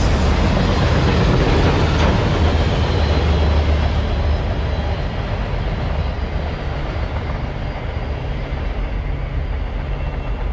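A train rolling past with a steady, heavy rumble that slowly fades.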